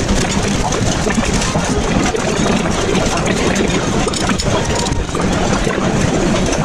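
A steady low background din, with rustling and light clinks throughout as cutlery is unwrapped from a paper napkin and set down on a plate.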